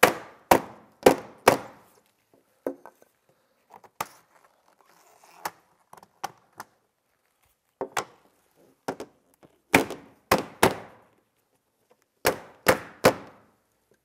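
A steel claw hammer tapping on a wooden block, driving a window glazing bead back into its snap-in seat in the frame. The sharp knocks come in short runs: four about half a second apart at the start, a few lighter ones in the middle, then a quicker run and three last taps near the end.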